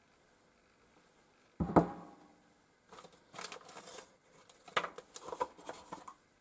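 A solid knock about a second and a half in as a steel tool post part is set down on the bench, followed by a few seconds of irregular rustling and light clinking as the oiled parts and their wrapping are handled.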